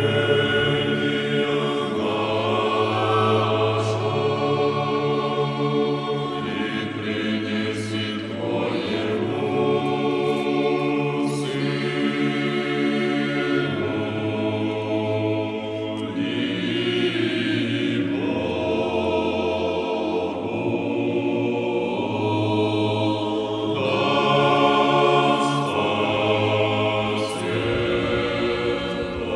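Choral singing in a slow, chant-like style, with low notes held for several seconds at a time under the changing upper voices.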